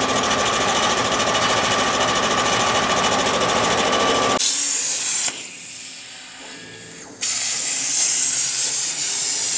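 A loud, steady mechanical rattle and buzz fills the first half and stops abruptly. Then a plasma cutting torch's arc hisses loudly in two bouts: a short one, then a pause of about two seconds, then a longer one about seven seconds in.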